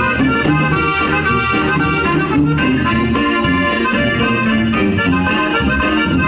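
Live Mexican regional band music, the accordion leading the melody over bass notes and a steady rhythm.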